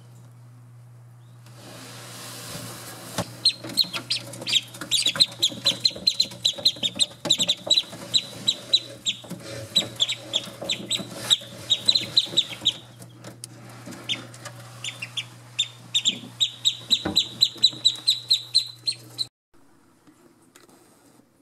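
Australian shelduck ducklings peeping, many short high calls a second in a busy run, over a steady low hum; the calls and hum stop abruptly near the end.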